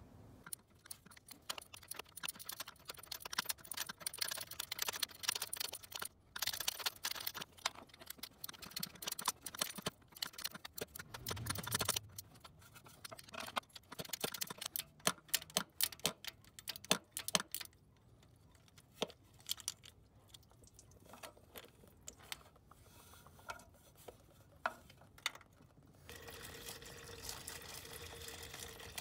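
A ratcheting wrench clicking in quick, irregular runs as it works the coolant temperature sensor loose, with sharper metal clicks a little past the middle. About 26 s in, a steady trickle of coolant starts running out of the opened sensor port.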